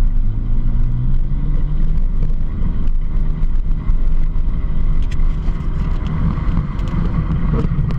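ATV engine accelerating, its pitch rising over about the first second, then running steadily at speed, with tyre noise on a gravel road and scattered sharp clicks.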